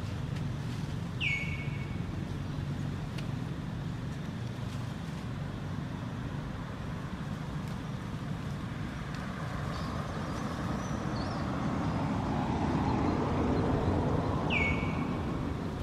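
Steady low outdoor rumble, such as distant traffic or wind on the microphone, with a short high chirp falling in pitch about a second in and again near the end.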